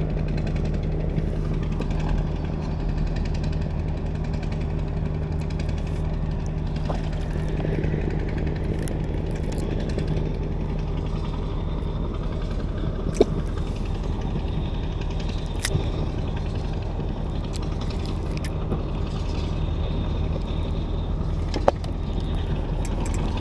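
Small stern-mounted engine of a wooden river boat running steadily at low speed, with a few sharp clicks near the middle and end.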